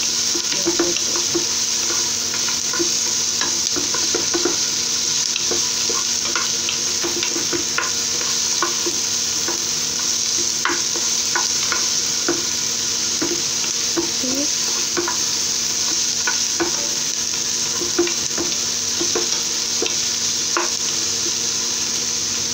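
Chopped onions sizzling as they fry in oil in a non-stick pot, with a steady hiss. A wooden spatula stirs them, scraping and tapping against the pan in short, irregular clicks.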